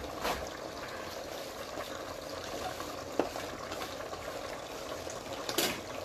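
Steady hiss of food cooking on the stove, with three sharp clinks of a metal skillet against a steel pot, the loudest about three seconds in.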